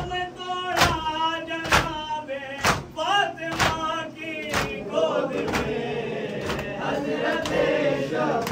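Mourners beating their chests (matam) in unison, a sharp slap about once a second, keeping time under a lead voice singing a mourning chant. About halfway through, a crowd of male voices takes up the chant.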